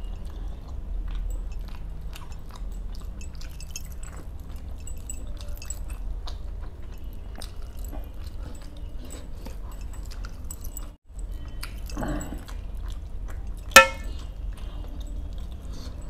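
Fingers picking and tearing masala-coated fish on a steel plate, making many small wet clicks and smacks. About 14 s in, a single sharp metallic clink against the steel plate.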